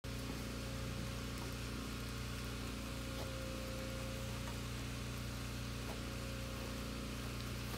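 Steady low mechanical hum with an even hiss over it, unchanging throughout, with a few faint clicks.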